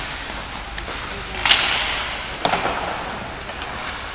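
Ice hockey sticks striking the puck: two sharp cracks, the loudest about a second and a half in and another about a second later, each ringing briefly in the rink.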